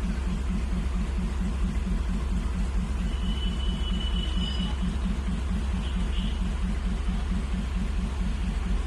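A large engine running steadily at idle, with a regular low throb. A faint thin high tone sounds briefly midway.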